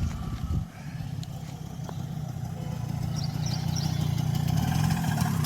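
Enfield Fury's small two-stroke engine running steadily and getting gradually louder, with a low thump at the start and a few high chirps about three seconds in.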